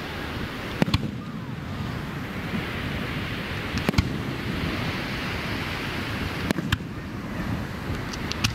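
Aerial fireworks shells bursting: sharp bangs, mostly in close pairs, about every two and a half seconds, with a quick run of cracks near the end, over a steady rushing background noise.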